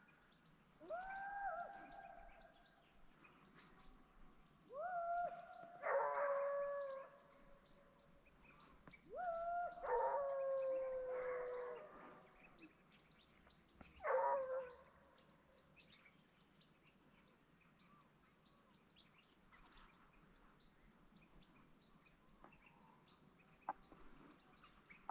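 Distant hunting hounds baying as they search the brush for deer: about five drawn-out, howling bays in the first fifteen seconds, then none. A steady high insect buzz runs underneath.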